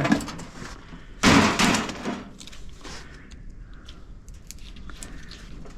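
Metal parts of a small electric motor from a scrapped microwave being handled and scraped: one short harsh scrape about a second in, then faint clicks and taps.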